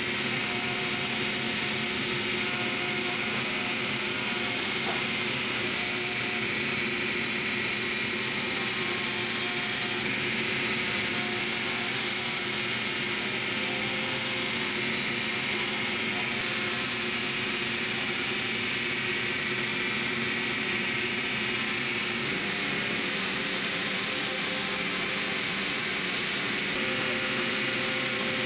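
Laser rust-cleaner ablating rust from a rusted steel saw blade: a steady high hiss over a constant low hum.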